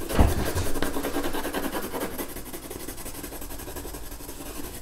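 Pencil scratching on paper as fur is shaded in short, scribbly strokes, with a low thump just after the start.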